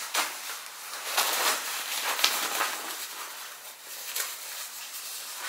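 Rustling and handling of a new garment as it is pulled out and held up, an uneven crinkly rustle with a couple of sharp ticks in the first few seconds.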